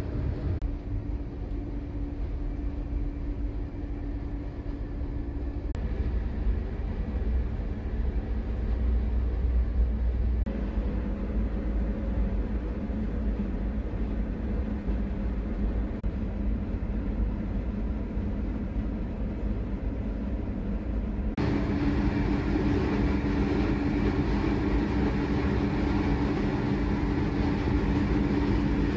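Steady low rumble and hum inside a night-train sleeper carriage. It changes abruptly a few times, and about three quarters of the way through it becomes louder with more hiss.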